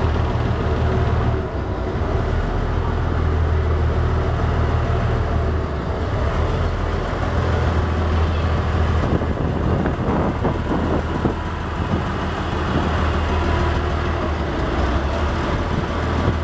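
River ferry's engine running with a steady low hum, under a continuous rushing noise.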